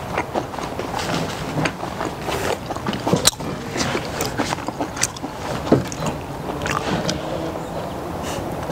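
Close-up eating noises: chewing and mouth clicks while eating steak, with scattered light clicks of metal tongs and a knife, over a steady background hiss.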